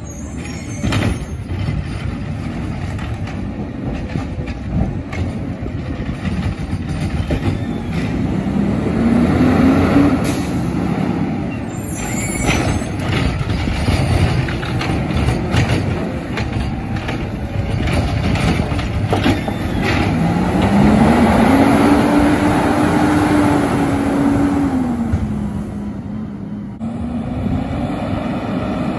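Garbage truck running, its engine revving up and back down twice as its hydraulic lift works, with scattered metallic knocks and a brief hiss of air from the air brakes.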